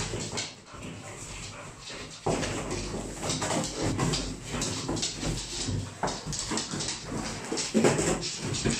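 An English bull terrier vocalising as it wrestles and tears at a cardboard box, with the cardboard scraping, crumpling and tearing in a constant run of crackles, loudest near the end.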